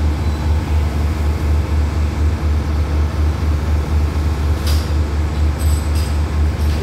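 Diesel engine of a standing passenger train idling: a steady low throb that pulses evenly, with a few light clicks near the end.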